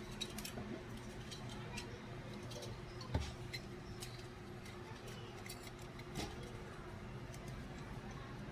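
Scattered light clicks and taps of small tools and computer parts being handled while the dirty heatsink and dried thermal paste are cleaned, with a heavier knock about three seconds in, over a steady low hum.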